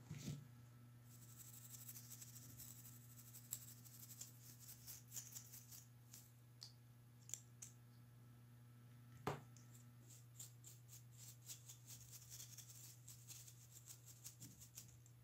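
Faint scratchy brushing and small plastic clicks as a laptop's cooling fan is handled and its blades are swept with a small brush to clear the dust, with one sharper click about nine seconds in. A steady low hum runs underneath.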